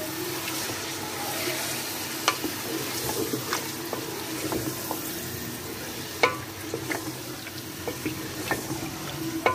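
Chunks of beef frying and sizzling in hot oil in a metal pot as a ladle stirs them, with the ladle scraping and clicking against the pot now and then; the loudest knock comes about six seconds in. The meat is being seared until it turns from pink to white.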